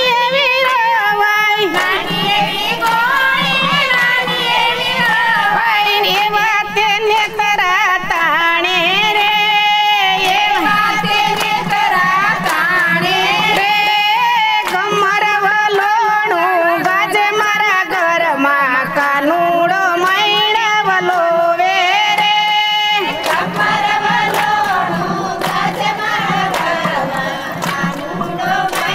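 A group of women singing a Gujarati devotional kirtan over music, with hand-clapping.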